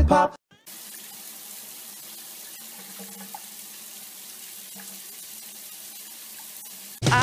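Shower water running steadily into a bathtub and onto a cat, an even hiss of falling spray. Music stops just after the start and comes back in near the end.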